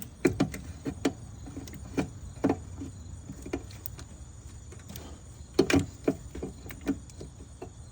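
Hands handling the engine computer's wiring connectors: scattered light clicks and knocks, with a louder cluster of knocks a little before the end.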